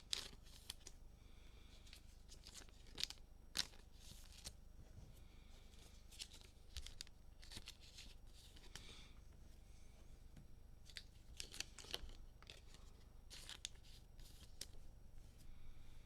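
Faint rustling and scattered clicks of trading cards and pack wrappers being handled, with a few sharper clicks.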